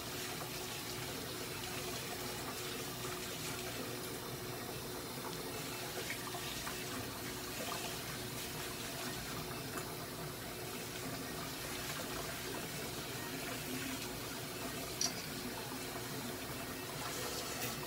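Steady hissing background noise with a constant low hum, and one short click about fifteen seconds in.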